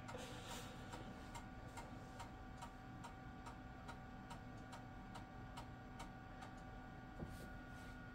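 A 3.5-inch floppy drive in a 1999 Dell Dimension XPS T550 reading a disk: faint, evenly spaced head-stepping clicks, about two to three a second, over a steady hum.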